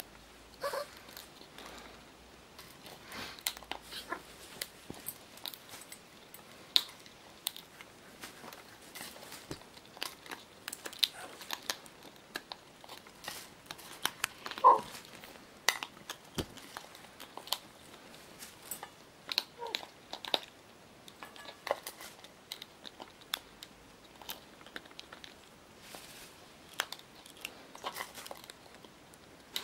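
Scarlet macaw eating seeds from a stainless steel bowl: irregular sharp cracks and crunches as its beak works the food, with clicks of the beak against the metal bowl.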